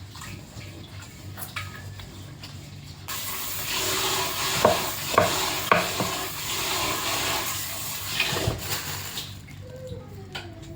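Water running hard for about six seconds, starting suddenly about three seconds in and cutting off abruptly, with a few clatters partway through.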